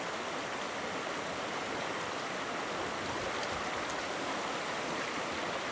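Shallow creek running over rocks and small rapids: a steady rush of water.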